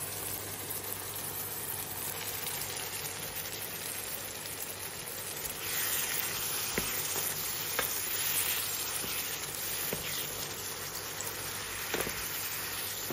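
Chopped tomatoes and green peppers sizzling in oil in a nonstick frying pan, a steady hiss that grows louder about halfway through, with a few small pops.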